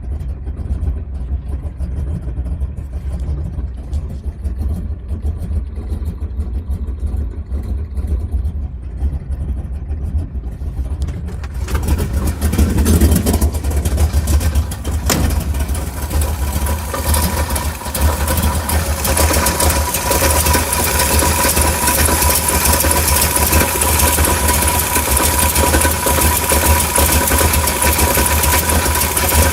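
Chevrolet 396 big-block V8 running, a steady low rumble that turns much louder and brighter about a third of the way in. A steady high tone comes in past halfway over the engine noise. The owner suspects something is wrong with the engine.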